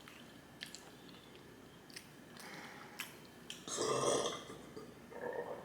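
A person burping once, loudly, about four seconds in, with a few faint clicks before it and a smaller sound just after.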